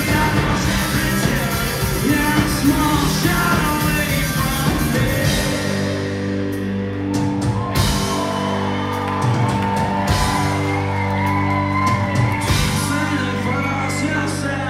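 Live rock band playing loud with a male singer yelling into the microphone. About five seconds in the drums mostly drop away and held guitar chords ring on under the voice, with a few scattered hits.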